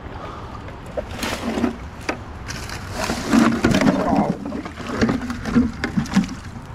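Wading in a shallow creek: water sloshing, with irregular knocks and clanks throughout.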